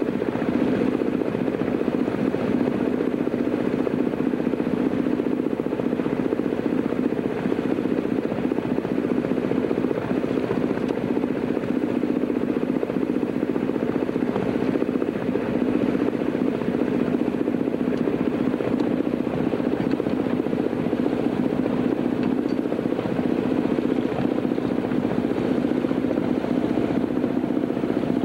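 Boat engine running steadily with a fast, even pulsing throb that does not change.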